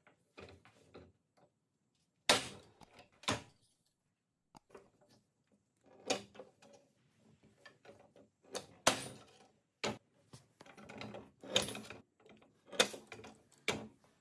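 Hand-lever corner notcher shearing a small steel plate: several sharp metallic clunks as the blade comes down and cuts. Between them come quieter clinks and scrapes of the plate being moved on the steel table.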